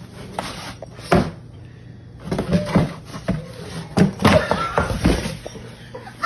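A series of knocks and thuds, the sharpest about a second in and twice around four seconds in.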